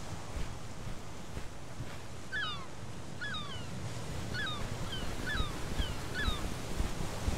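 Steady wind and surf noise on open shore, over which a bird gives a string of about six short calls, starting about two seconds in.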